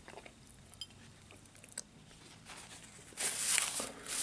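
A sandwich being chewed, with small wet mouth clicks, then about three seconds in a paper napkin wiped across the mouth in two rough, rustling swipes, the loudest sound.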